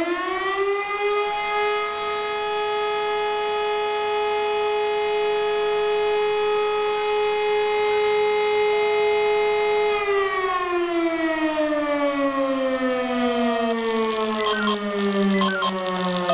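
E57 electro-mechanical rotary siren sounding for a fire brigade test alarm. It holds a steady howl at full pitch, then from about ten seconds in winds down, its pitch falling slowly.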